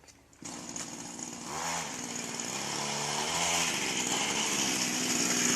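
Two-stroke grass-cutter engine fitted to a bicycle, running; it cuts in about half a second in and grows steadily louder.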